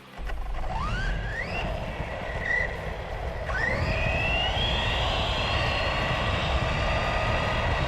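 GoolRC 4800KV brushless motor of a 1/18-scale RC truck whining up in pitch as the truck accelerates. There is a short rise about a second in, then a longer rise from about three and a half seconds that levels off into a steady high whine. A low rumble runs underneath, heard from a camera mounted on the truck.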